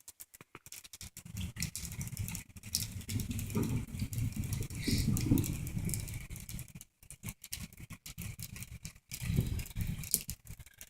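Low rumble of thunder following a lightning strike. It swells for several seconds and fades, then comes back more briefly near the end, over scattered light ticks.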